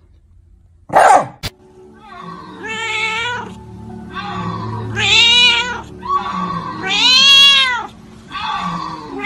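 A cat meowing over and over in long, drawn-out meows, each rising and falling in pitch, about every two seconds. A sharp thud about a second in is the loudest sound.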